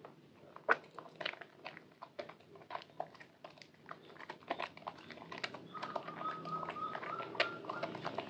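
Soaked white Purbasari bar soap and thick lather squelching as hands squeeze and knead it in a basin: irregular wet squishes, crackles and small pops. A faint run of short chirping tones sits behind it for a second or so past the middle.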